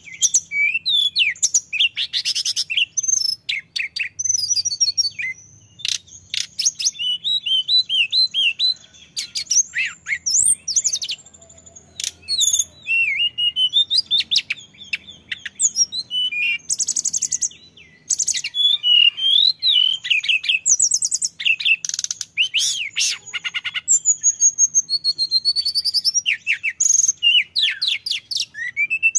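Male hill blue flycatcher (tledekan gunung) singing long, continuous runs of varied clear whistles, fast trills and quick up-and-down sweeps, broken only by brief pauses.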